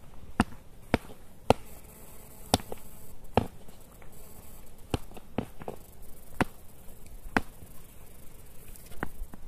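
Land tortoise shells knocking together as one tortoise rams the other: about a dozen sharp, hollow knocks at an irregular pace, sometimes two close together.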